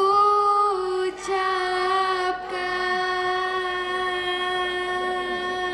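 Singing in unison on long held notes at nearly one pitch, with two brief breaks about one and two and a half seconds in.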